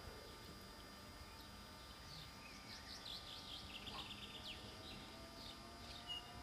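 Faint birdsong: a quick run of high chirps in the middle stretch, then a single short high note near the end, over quiet outdoor background.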